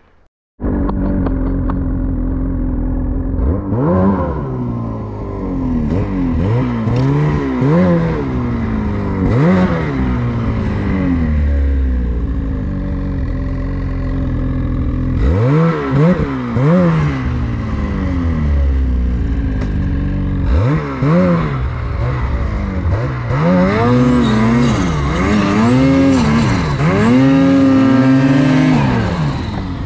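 Snowmobile engine revved up and down in repeated short bursts as the sled struggles through heavy, wet, sticky snow while the rider tries to turn it around and get unstuck.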